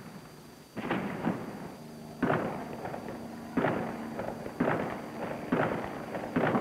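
Gunfire in a city street: about six sharp shots, roughly a second apart, each followed by a short echo.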